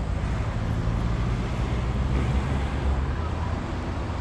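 Steady low rumble of wind buffeting the microphone while the camera moves through open air.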